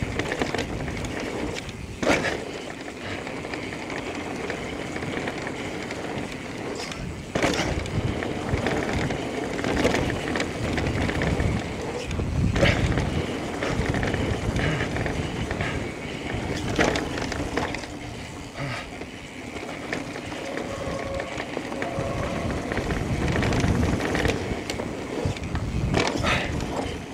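Electric mountain bike rolling over a rough dirt trail: steady tyre and drivetrain rumble and rattle, with sharp knocks every few seconds as the bike jolts over the terrain.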